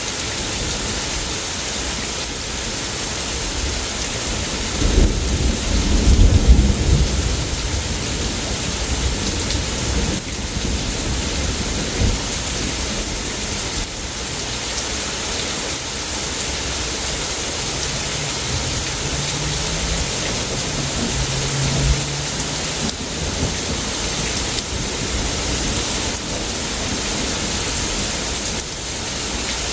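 Heavy rain falling steadily in a thunderstorm, with a loud thunderclap and rumble about five seconds in and a couple of smaller thunder knocks later.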